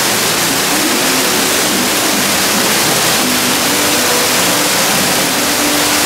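Artificial waterfall pouring steadily down onto rocks: a constant, even rush of falling water.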